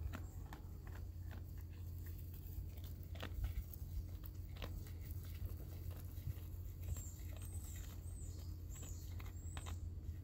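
Goat chewing a mouthful of hay close by: irregular soft crunching and clicking. A few short, high, falling chirps come near the end.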